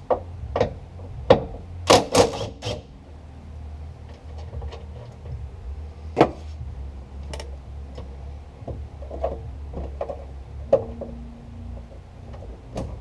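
Irregular sharp metallic clicks and knocks of hand tools on a car door hinge bolt as it is loosened, several close together in the first few seconds and then sparser, over a steady low hum.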